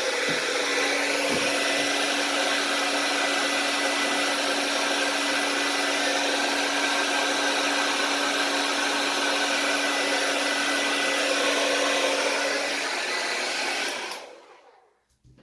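Handheld blow dryer running steadily close by, a rush of air with a steady hum under it. It is switched off near the end and winds down within about a second.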